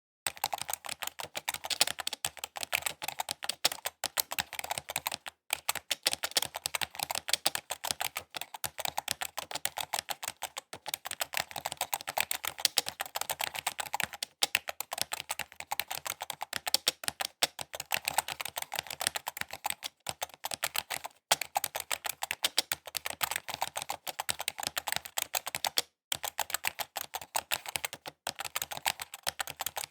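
Quick typing on a computer keyboard: rapid, continuous key clicks with brief pauses every few seconds.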